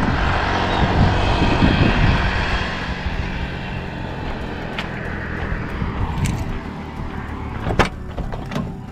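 Rushing vehicle noise that fades away over the first few seconds, then a sharp click near the end as the minibus's driver door latch is pulled open.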